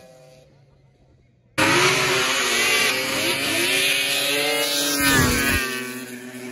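Two racing snowmobile engines at high revs during a grass drag run. They come in abruptly about a second and a half in, with several engine pitches layered and gliding, and grow loudest as the sleds pass at about five seconds before fading away. Before that, the last of a previous engine fades almost to quiet.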